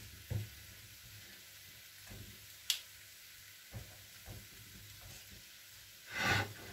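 Metal kitchen tongs clicking and tapping in a frying pan as chips are placed, over a faint steady sizzle from the still-hot pan. A few sharp clicks, then a louder scrape near the end.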